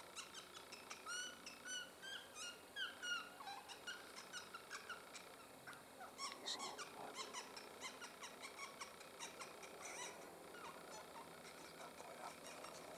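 Electronic predator caller playing a prey distress sound: rapid, faint squeaky chirps that glide up and down in pitch, busiest in the first half and thinning later.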